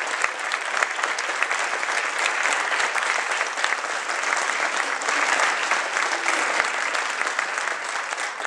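Auditorium audience applauding, many hands clapping steadily.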